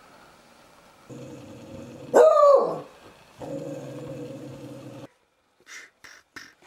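A dog growling in a low, steady drone, broken about two seconds in by one loud bark that rises and falls in pitch; the growl resumes and then cuts off abruptly about five seconds in.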